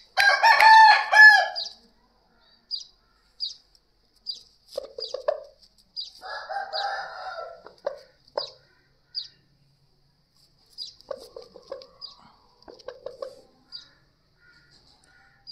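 An Aseel rooster crows once, loud, for about a second and a half right at the start. After it come quieter, scattered clucks and short calls from the fowl, with short high chirps throughout.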